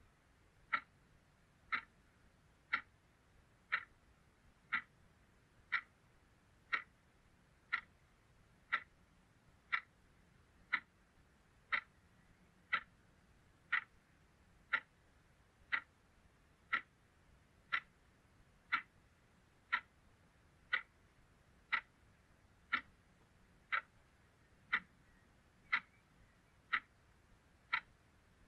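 Steady ticking, one sharp tick about every second, evenly spaced.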